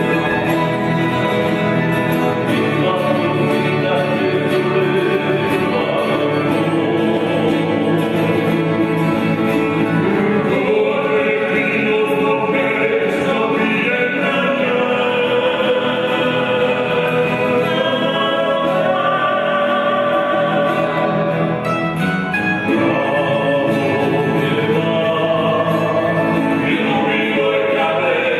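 A small folk band playing a song: accordion, acoustic guitar and mandolins accompanying several voices singing together.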